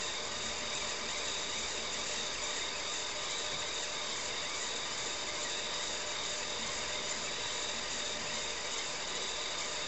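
Steady whirr of a running TRS-80 Model 16B, its fan and disk drives turning, with a steady high whine, as it copies utility programs to the hard disk.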